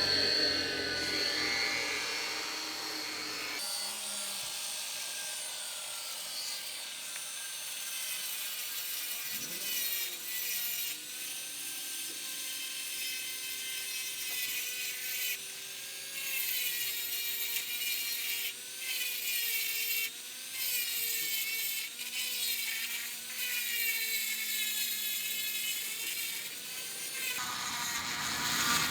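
Dremel rotary tool with a reground cutter plunging into and cutting a groove in soft insulating firebrick: a high motor whine that wavers in pitch under load over a gritty scraping, which stops and starts several times in the second half.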